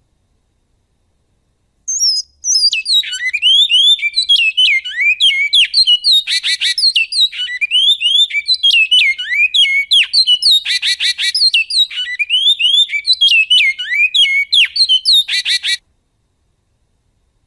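Great-billed seed finch (bicudo) singing a long, fast song of whistled down-slurred notes in the 'canto goiano' style. Three short buzzy rattles are mixed in. The song starts about two seconds in and stops abruptly near the end.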